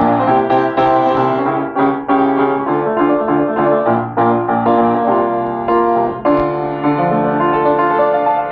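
Solo piano improvisation: chords struck over a moving bass line, notes ringing on between strikes.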